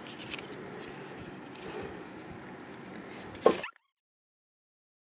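Faint rustling and light clicks of paper being handled on a card blank, then a brief sharp sound about three and a half seconds in, after which the sound cuts to dead silence.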